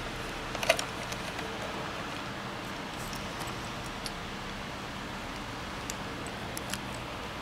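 A few light clicks and taps from handling a multimeter and its test leads, the sharpest a little under a second in, over a steady hiss with a faint hum.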